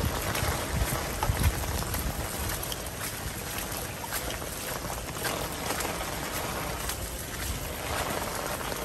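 Heavy rainstorm: rain pouring down steadily with gusting wind, and wind buffeting the microphone with a low rumble in the first second or so.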